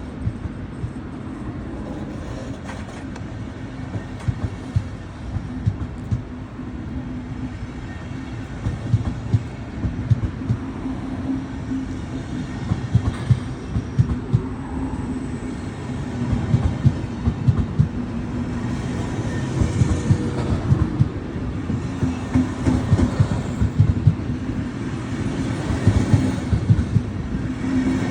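Departing passenger train hauled by a Vectron locomotive rolling slowly past, its wheels clicking and clattering over rail joints and points. The clatter grows louder and denser over a steady rumble.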